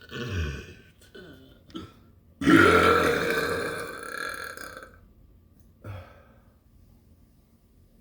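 A person burping: a short burp that drops in pitch at the start, then a long, loud burp about two and a half seconds in that lasts over two seconds, and a short one near the end.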